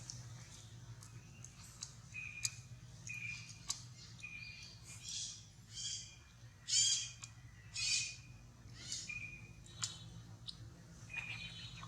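A run of short, high-pitched squeaking animal calls, some thin single notes and some louder wavering squeals, the loudest about seven and eight seconds in, over a steady low hum.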